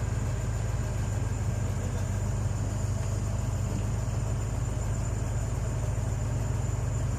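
Heavy machine's diesel engine running steadily at idle, a low, even rumble.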